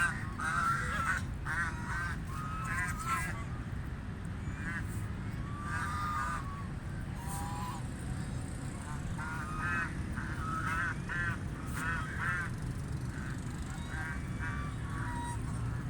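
Canada geese honking: runs of short, repeated honks that come in clusters with brief pauses, over a steady low background rumble.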